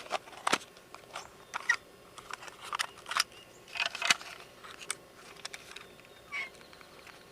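Irregular sharp clicks and short rustles of gear being handled by hand, several in quick succession, with the loudest about half a second and four seconds in.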